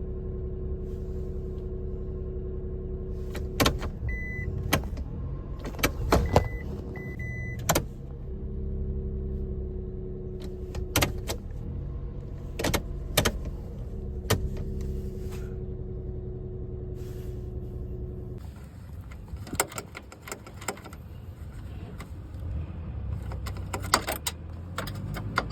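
Suzuki kei car running with a steady low hum, broken by repeated sharp clicks and knocks. A few short high beeps sound about four to seven and a half seconds in. The running hum stops about eighteen seconds in, and the clicks carry on after it.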